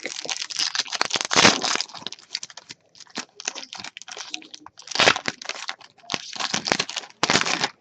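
Plastic wrapper of a trading card pack crinkling and tearing as it is opened, in a run of noisy crackly bursts, densest in the first two seconds and again in the second half.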